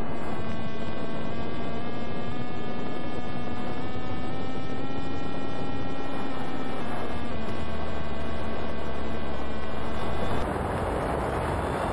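Electric motor and propeller of an FPV model plane, recorded on board: a steady whine whose pitch drifts slightly up, then steps down about seven seconds in. About ten seconds in it gets quieter and wind rushing over the microphone takes over.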